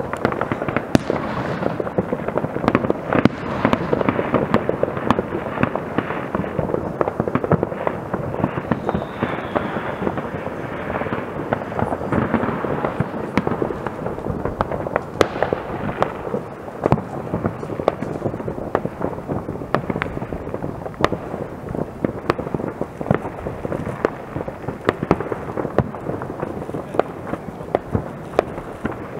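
Many distant fireworks going off at once across a town: a continuous rumbling din of bangs and crackles, with frequent sharper single reports standing out from it.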